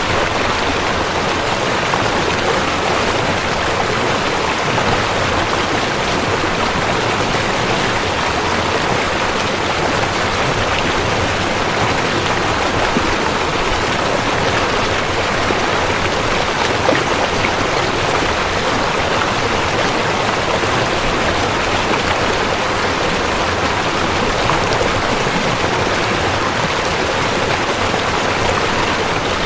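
A rushing river: a loud, steady, unbroken rush of flowing water.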